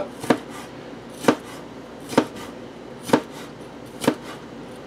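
Chef's knife chopping bell pepper into julienne strips on a cutting board: five sharp knife strikes, about one a second.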